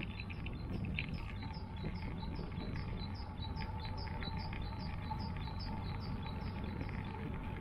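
Steady low road and wind rumble from a moving bicycle. Over it, a short high chirp repeats evenly about three times a second and stops near the end.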